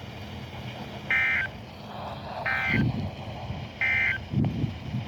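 NOAA Weather Radio Emergency Alert System end-of-message code from station KZZ48: three short, identical bursts of buzzy digital data tone, evenly spaced, that close the weekly test broadcast. A few low muffled bumps come between and after the bursts.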